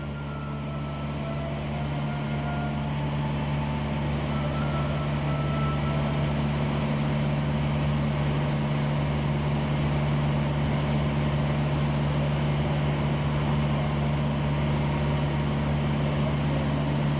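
Piston engine and propeller of a light single-engine aircraft droning steadily in cruise, heard inside the cabin; it grows louder over the first few seconds, then holds steady.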